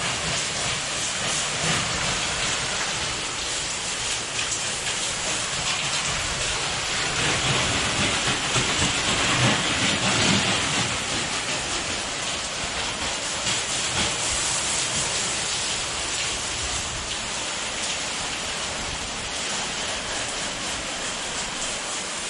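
Pressure washer running and spraying a jet of water onto a surface: a steady, loud hiss of spray with a low rumble under it, swelling a little around eight to ten seconds in.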